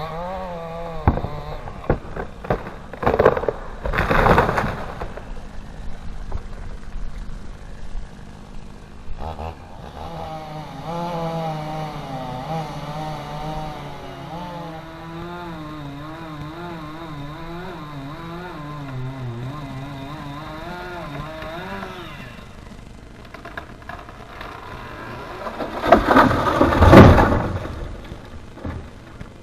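Chainsaw engine running, its pitch wavering up and down, with two loud noisy bursts, one about four seconds in and a louder one near the end.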